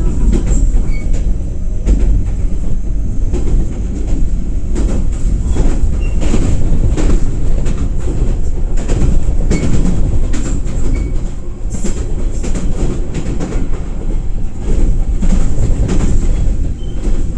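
Freight train wagons rolling by with a heavy low rumble and many irregular clacks of wheels over rail joints.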